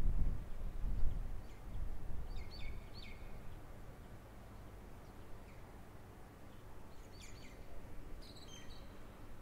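Quiet urban outdoor ambience: a low rumble that fades over the first couple of seconds, with small birds chirping in two short bursts of quick falling notes, about two seconds in and again near the end.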